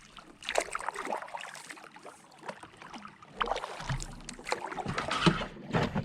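A canoe being handled and paddled: irregular splashes and knocks against the hull.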